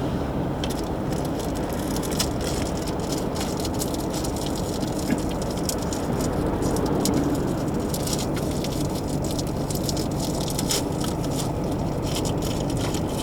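Steady road and tyre noise from a car driving along, heard from inside the cabin, with scattered light ticks and rattles throughout.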